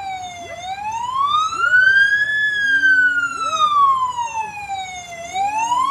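Fire truck siren in a slow wail: the pitch climbs for about two seconds, sinks over the next three, and starts to climb again near the end.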